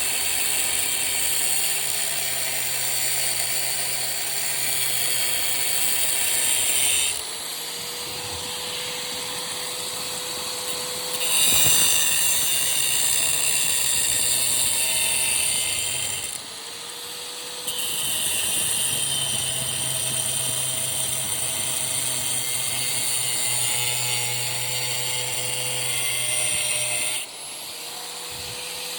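Angle grinder with a cut-off disc cutting through metal, loud with a harsh hiss while the disc is in the cut. Three times the disc comes off the work and the motor runs free with a rising whine, then bites back in.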